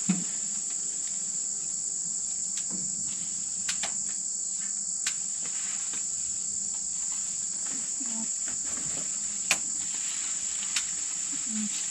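Steady high-pitched chorus of insects shrilling without a break, with a few sharp clicks scattered through it.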